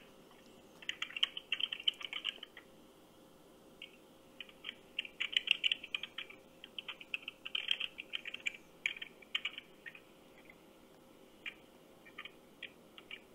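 Computer keyboard typing heard through a phone's speaker during a call: a customer service agent typing in quick runs of clicks with pauses, thinning to a few scattered keystrokes near the end.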